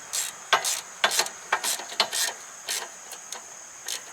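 Socket ratchet wrench being worked in short strokes on a bolt, each stroke a quick run of ratcheting clicks, about two strokes a second at first and sparser near the end.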